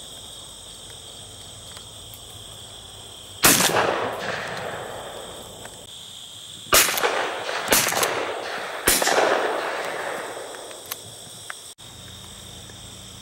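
Four shotgun shots at flying doves, each trailing off over about a second or two. One comes about three and a half seconds in, then three more close together, roughly a second apart, between about seven and nine seconds in. A steady high insect chirring runs underneath.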